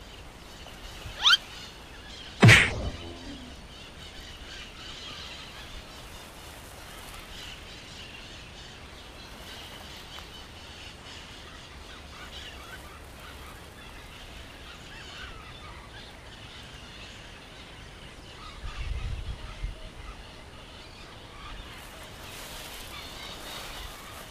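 Rural outdoor ambience with birds calling and a faint steady background hiss. About two and a half seconds in comes a loud, sharp sound falling in pitch, just after a short rising call, and a few low bumps sound on the microphone later.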